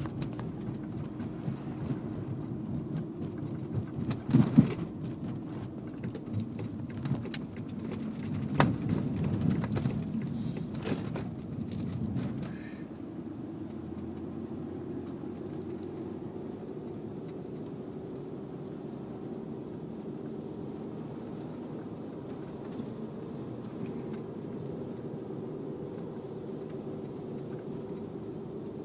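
Cabin road noise of a 1997 Audi A6 Avant driving over bumpy pavement, with several sharp pops from the right front strut during the first dozen seconds, the loudest about four seconds in. After that the road noise settles into a steadier, quieter rumble. The owner suspects a worn or dislodged strut bearing or a loose strut-to-chassis mount rather than the new Bilstein strut.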